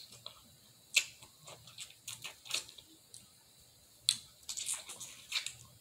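Close-up eating sounds of a cooked shrimp being peeled and eaten: irregular sharp crackly clicks and wet mouth smacks, coming in clusters about a second in, around two seconds in, and again from about four seconds in.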